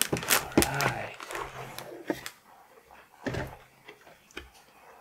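Crinkling and crackling of a metallic anti-static bag being handled around a motherboard in its cardboard box, busiest in the first two seconds, then a single soft thump of box handling about three seconds in.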